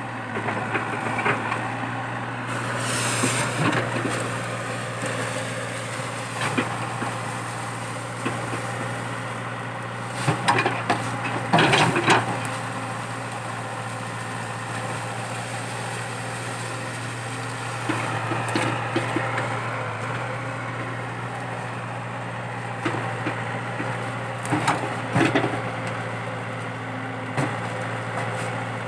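Komatsu PC80 hydraulic excavator's diesel engine running steadily under load while it rips out a eucalyptus stump. Several sharp cracks and snaps of roots and wood breaking sound over the engine, the loudest about ten to twelve seconds in.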